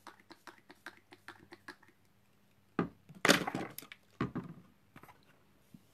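A run of light clicks, then a sharp knock about three seconds in, a short louder scraping rustle and another knock a second later, made by something handled close to the microphone.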